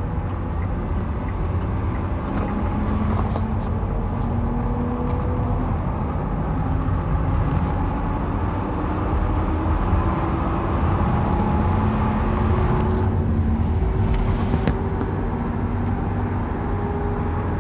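GMC van's rear differential whining loudly over low road rumble while driving, the whine's pitch climbing slowly as the van gathers speed.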